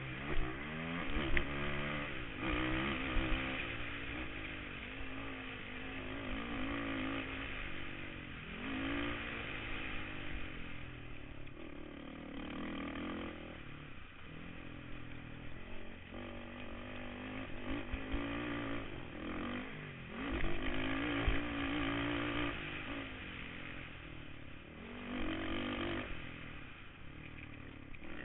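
Kawasaki KFX 450R quad's single-cylinder four-stroke engine racing over a dirt track, revving up and easing off again and again through shifts and corners, with the odd knock from the bumps.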